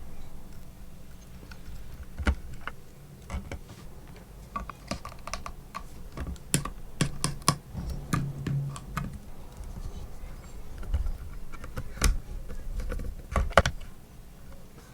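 Irregular light clicks and taps of tools and small hardware being handled while working on an electric guitar, with a few sharper knocks about two, twelve and thirteen and a half seconds in.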